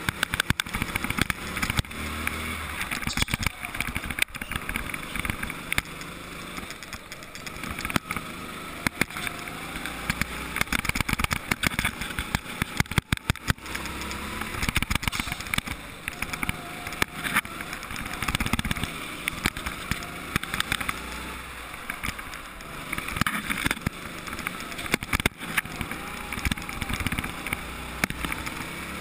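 Go-kart driven on track, heard onboard: the kart's motor rising and falling in pitch through the corners under constant wind buffeting and rattling knocks on the microphone.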